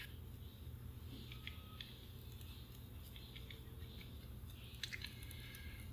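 Quiet workbench with a faint steady low hum and a few faint, light clicks and taps as a soldering iron and fingers work on a vintage transistor radio's circuit board, the clearest pair of clicks about five seconds in.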